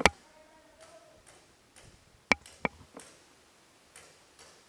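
Airsoft fire heard as sharp single snaps: a loud one at the start, two close together about two and a half seconds in, then a few fainter ticks.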